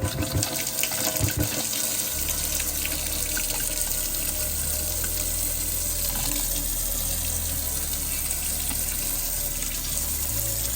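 Newly installed kitchen faucet running water steadily into the sink on its first test, with a few light clicks at the start.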